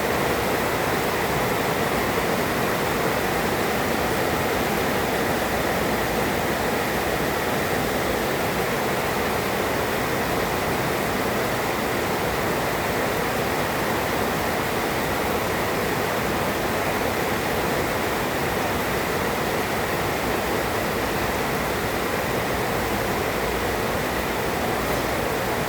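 Heavy rain pouring down steadily in an even, unbroken hiss.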